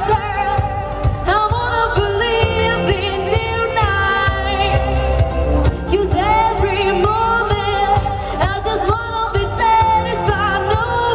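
Pop music with singing over a steady bass beat, played loud.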